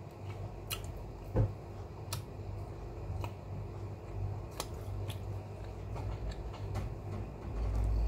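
A person eating: irregular small clicks and smacks of chewing, about one every second or so, over a steady low hum.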